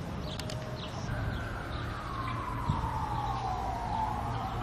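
Siren wailing: one slow downward sweep in pitch starting about a second in, turning to rise again near the end.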